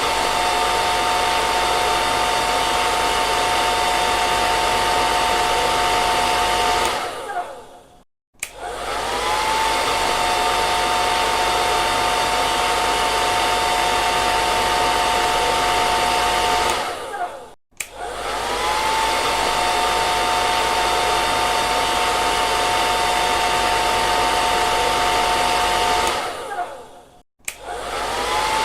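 Electric hair dryer switched on and blowing with a steady whine, spinning up with a short rising pitch, running about eight seconds, then winding down and cutting out. The same on-run-off cycle repeats three times.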